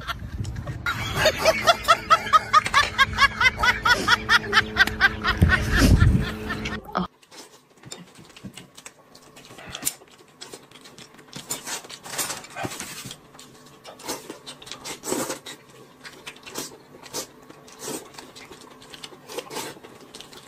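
A burst of rapid, rhythmic laughter over music for about seven seconds, cutting off suddenly. Then faint, scattered clicks and taps of chopsticks against a plate of rice.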